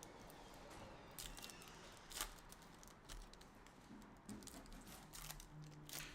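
Faint scattered clicks and light rustling from trading cards and foil packs being handled on a table, with one sharper tap about two seconds in.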